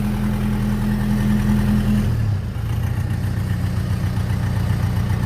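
Kubota tractor's diesel engine running steadily, its note shifting to a different pitch about two seconds in. The tractor has water in its diesel, drained again and again from the fuel water separator to keep it running.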